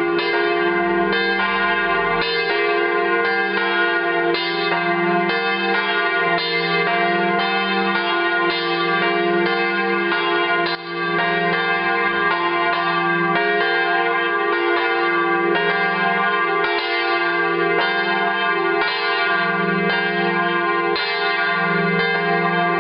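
A full peal of several church bells ringing together, their strokes overlapping at about two a second, with each bell's tone sounding on between strokes.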